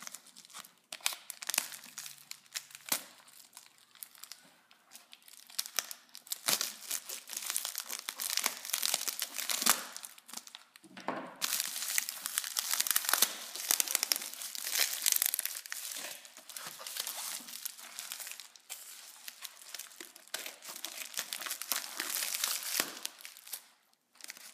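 Plastic mailer bag and plastic wrapping crinkling and tearing as it is pulled and cut open, with scattered sharp clicks. Sparse at first, then denser and louder from about halfway.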